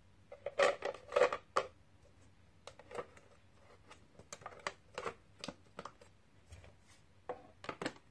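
Hard objects being handled: irregular clicks, taps and short rattles, with a cluster of louder ones in the first second and a half and more scattered through the rest. No motor is running.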